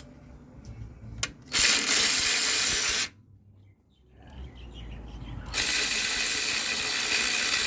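Socket ratchet on an extension clicking rapidly in two runs, the first about a second and a half long and the second starting about halfway through after a short pause, as it backs out a starter mounting bolt until the bolt comes free.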